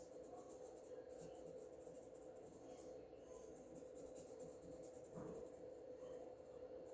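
Faint, irregular scratching of a coloring tool stroking across paper, over a steady low hum.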